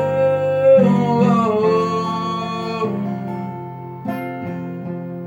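A song with acoustic guitar: a long sung note is held, then steps down and fades over the first three seconds, and a new guitar chord is struck about four seconds in.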